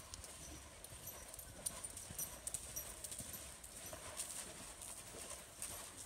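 Faint, uneven hoofbeats of a horse cantering on a soft sand-and-dirt arena floor.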